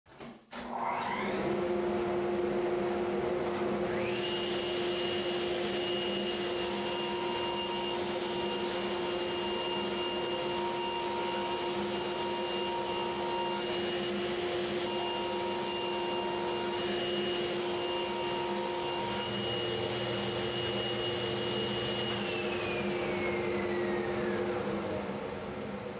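Table saw and its dust-collection vacuum running: a steady hum starts about a second in and a higher motor whine comes up to speed a few seconds later while a plywood board is ripped. Near the end the whine falls away as the saw winds down and the hum stops.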